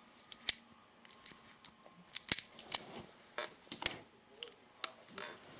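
Gerber sliding-plier multi-tool being worked by hand: a series of sharp metallic clicks and snaps as the release buttons are pressed and the plier head slides open.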